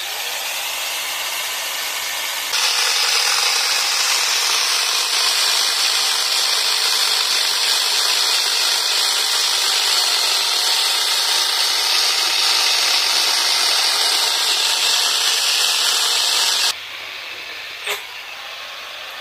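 Electric angle grinder with a chainsaw adapter running, its chain cutting through a wooden log. About two and a half seconds in the sound turns louder and hissier as the chain bites into the wood, holds steady, then drops back near the end as the cut goes through, followed by one sharp knock.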